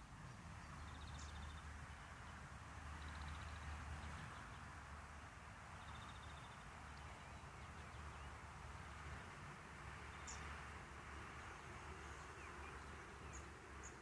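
Faint, short high bird chirps and two brief rapid trills over a steady background hiss and low hum.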